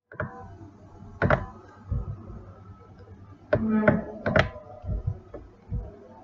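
Irregular clicks and knocks from a computer mouse and keyboard on a desk, about seven in all, several with a low thump, and a quick cluster of them near the middle.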